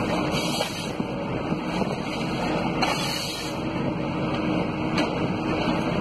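Diesel engine of a Komatsu PC200F forestry harvester running steadily as the machine works, with a few sharp knocks, about one every two seconds.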